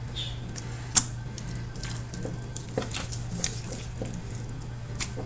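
Wet squelching of raw pork being handled and cut with a kitchen knife in a metal baking tray, with a few sharp clicks of the knife and meat against the tray, the loudest about a second in.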